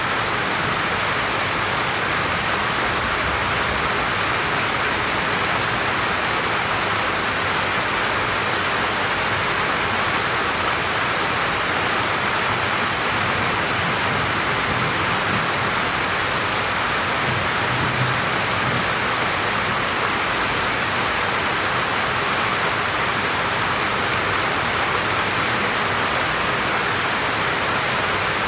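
Steady, even rainfall, heard from under a roof.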